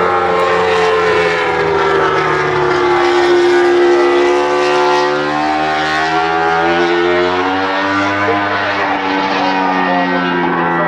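Honda RC213V MotoGP bike's V4 engine running at light throttle on a slow lap, its pitch sagging over the first few seconds, climbing again around the middle, then holding fairly steady.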